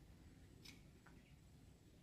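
Near silence: a faint low background rumble with one faint, short high chirp a little after half a second in.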